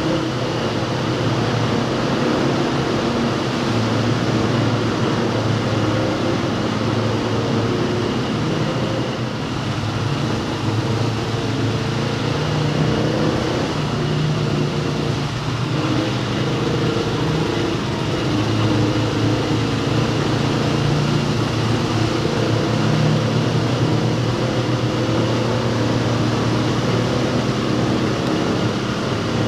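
Off-road motorcycle engine running steadily at an even speed while riding through a tunnel, with tyre and wind noise underneath.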